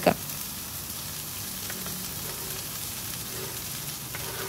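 Chopped red spinach (cheera) hitting hot coconut oil in a steel pot and frying with a steady sizzle.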